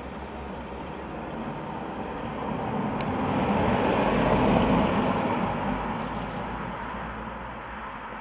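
Volvo V90 estate car driving past, tyre and engine noise rising as it approaches, loudest about four seconds in, then fading as it drives away.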